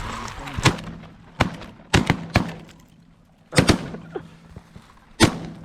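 Several shotguns firing a ragged volley of about seven shots at incoming sandhill cranes, unevenly spaced, several in quick succession and the last about a second and a half after the others.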